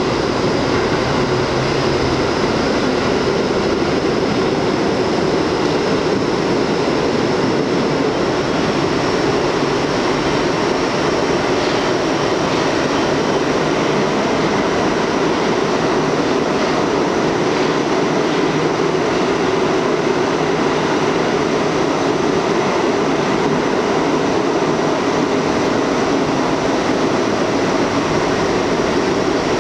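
R62A subway car running steadily through the tunnel, heard from inside the car: an even rumble of wheels and car body, with a thin high whine above it.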